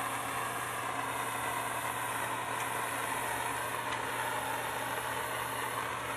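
Handheld soldering torch burning with a steady, even hiss while heating a copper pipe joint.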